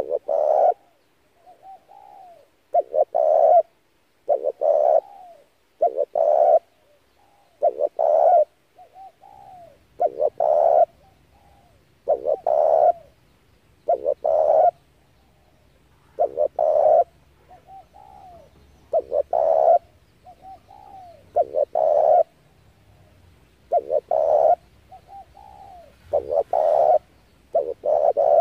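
Spotted dove cooing over and over: a loud phrase of deep coos about every two seconds, with softer, lower coos in between.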